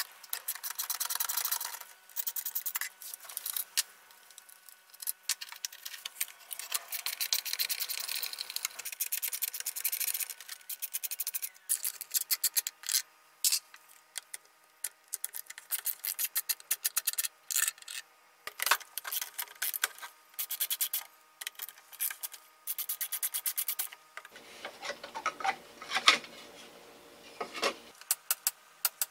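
Screwdriver backing screws out of a Porter-Cable portable band saw's motor housing: runs of rapid clicking and scraping of metal on metal. Near the end comes fuller knocking and rattling as the housing parts are handled, with one sharp knock.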